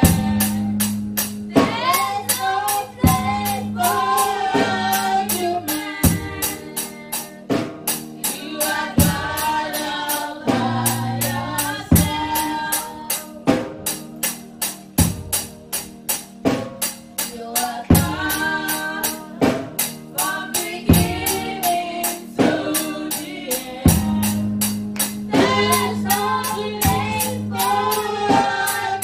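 Gospel worship song sung by a boy and two girls, with electronic keyboard chords and a steady percussion beat of about two strokes a second.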